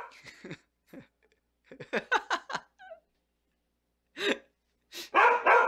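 A dog's whiny vocalizing: a short falling whine, then a quick run of about five yelping calls around two seconds in, a faint wavering whine, and louder barks near the end. It is the sound of an upset dog complaining for attention.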